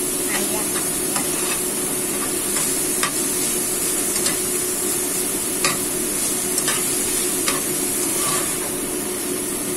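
Diced meat and scallions sizzling in oil in a nonstick frying pan, stirred with a stainless-steel spatula that scrapes and clicks against the pan now and then.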